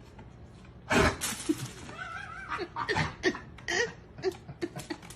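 A sudden loud sound about a second in, followed by bursts of a person's laughter.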